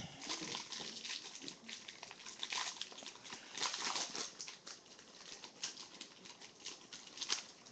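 Crinkling and crackling of a shiny foil wrapper being worked off a small trading-card box by hand: an irregular run of faint crackles.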